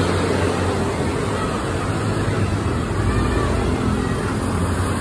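Intercity coach's diesel engine running past close by as the bus turns, a steady low engine note over the hiss of road traffic.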